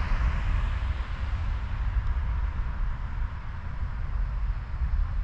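Wind rumbling on the microphone of a moving bicycle, with a steady rush of road noise that eases a little after about two seconds.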